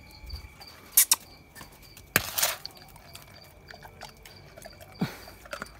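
A few sharp clicks and knocks at a metal dog bowl on a concrete floor, the loudest about two seconds in, over a steady high chirping of insects.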